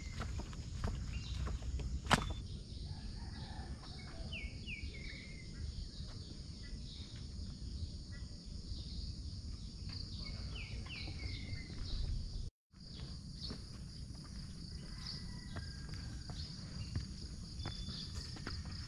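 Outdoor garden ambience: a steady high-pitched drone of insects with a few short bird chirps, over a low rumble on the microphone. A single sharp click sounds about two seconds in, and the sound drops out briefly about twelve seconds in.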